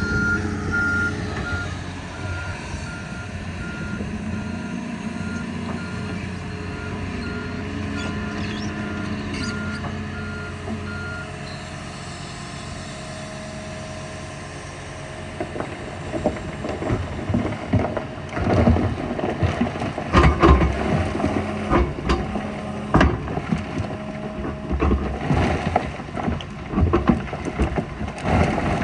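Diesel earthmoving machine running, its backup alarm beeping repeatedly for the first eleven seconds or so. From about halfway through come irregular loud knocks and rumble.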